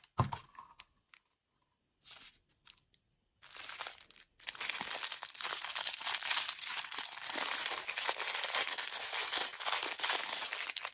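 Plastic food packaging crinkling as it is handled. It comes in short scattered rustles at first, with a near-silent gap, then becomes a dense, continuous crackle from about four seconds in.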